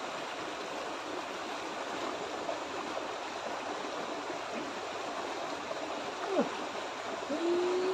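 Small stream rushing steadily over a low rocky ledge into a pool, a continuous even water noise.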